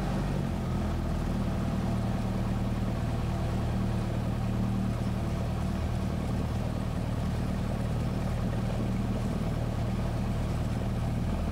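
Cessna 172SP's four-cylinder Lycoming IO-360 engine and propeller running steadily at low taxi power, heard inside the cabin.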